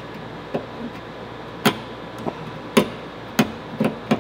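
About seven sharp, irregular taps and clicks of a small metal hand tool against the sign's hard face as blue painter's tape is pressed down and trimmed along its edge.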